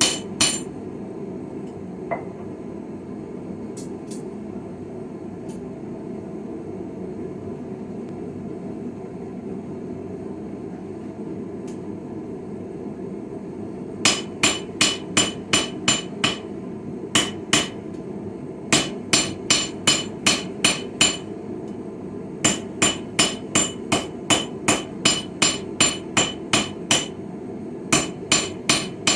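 Blacksmith's hammer striking a chisel blank on a Viking-style anvil, each blow ringing. Two lone blows near the start, then a long pause, then from about halfway through steady runs of about three blows a second broken by short pauses. A steady low rushing sound runs underneath.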